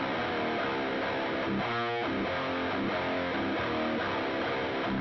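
Outro music led by guitar, playing steadily.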